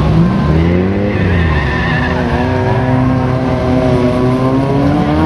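Bilcross race cars' engines revving up and down through the corners, one held at steady high revs for a few seconds, with tyre squeal about a second in.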